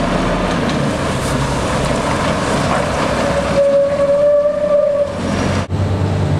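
Heavy machinery running loudly, a dense steady rumble. A single high whine holds for about a second and a half past the middle, and the sound breaks off abruptly near the end.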